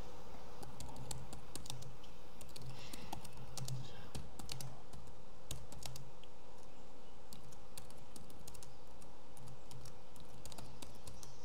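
Typing on a computer keyboard: irregular keystroke clicks in quick runs, over a faint steady hum.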